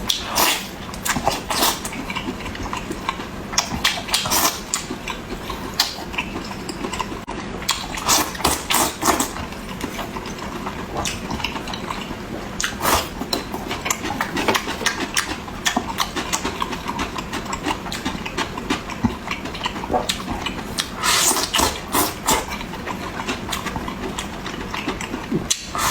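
Close-miked eating: wet chewing and lip smacking, with frequent sharp clicks and crunches.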